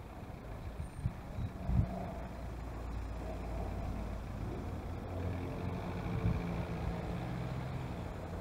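Road traffic at a city junction, heard from a motor scooter: vehicle engines running, with a steady low engine hum that grows louder in the second half. There are two dull thumps about one and two seconds in.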